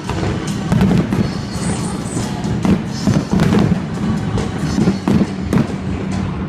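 Fireworks bursting in a string of irregular bangs and crackles, over loud music playing throughout.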